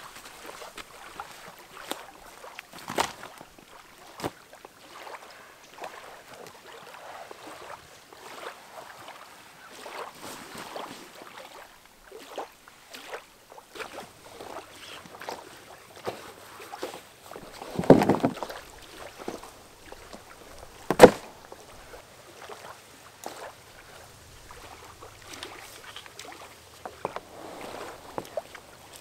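Canoe being loaded at the shore: footsteps on sand, and the scuffs and clicks of packs and a paddle being handled. A little past halfway comes a dull thump, then a sharp knock about three seconds later, as gear goes into the canoe's hull.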